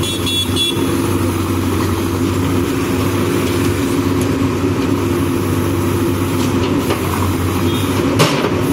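Manitou TLB 844S backhoe loader's diesel engine running steadily while the backhoe arm swings the bucket over a drain manhole. A sharp knock comes near the end.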